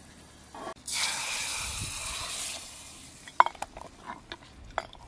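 A hiss lasting under two seconds, starting about a second in, as the steel plate comes off a clay pot of dal just tempered with hot oil and spices; then a steel ladle stirs the dal, clinking sharply against the pot several times.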